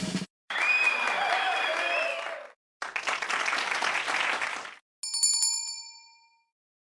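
Applause-like noise in two bursts of about two seconds each, then a single bright bell ding about five seconds in that rings out and fades.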